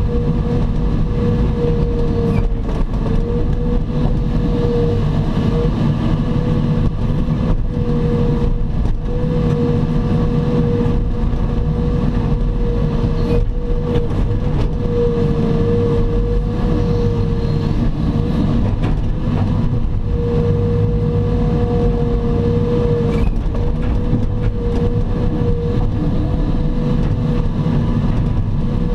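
Heavy earthmoving machine's diesel engine running steadily under work, with a high whine that keeps cutting in and out.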